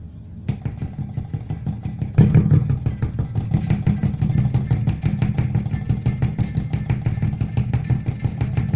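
Power amplifier (Platinum Pro Audio Sultan MA-350R) playing music through a speaker with a rapid, pulsing motor engine noise mixed in: the amplifier's fault. It starts about half a second in and gets louder a little after two seconds.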